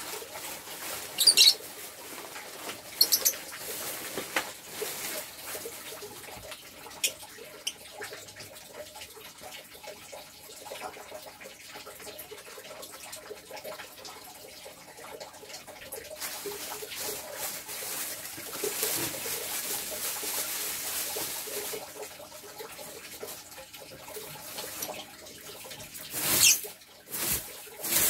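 Pet lovebirds in a wire cage: a few short high-pitched chirps in the first several seconds, then wing flutters and rustling, loudest near the end.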